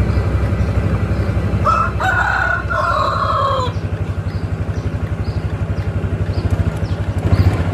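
A rooster crowing once, a call of about two seconds that starts a couple of seconds in and drops in pitch at the end, over a vehicle engine running steadily.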